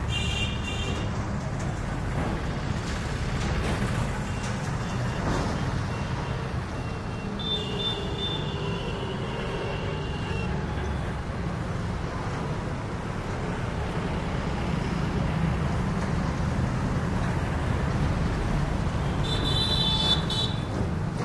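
Motorcycle engines running in street traffic, a steady low rumble, with bursts of high-pitched beeping three times: at the start, about eight seconds in, and near the end.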